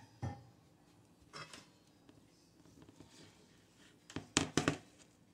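Metal spoon knocking against the side of a metal pot while stirring mashed potatoes: a knock just after the start, a couple more about a second and a half in, and a quick run of several louder clinks near the end.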